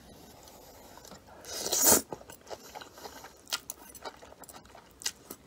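A person eating jjolmyeon noodles: one loud slurp a little under two seconds in, then chewing with small mouth clicks.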